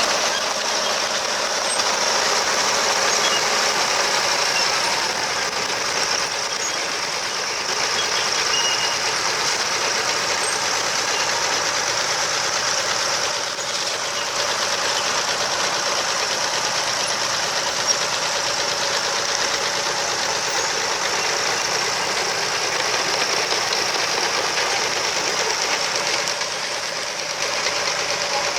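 Vintage tractor engines running steadily, a continuous mechanical drone.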